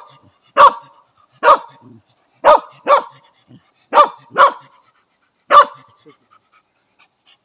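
Native Vietnamese hunting dog barking at a snake: seven single short barks, spaced unevenly about half a second to a second apart, stopping about six seconds in.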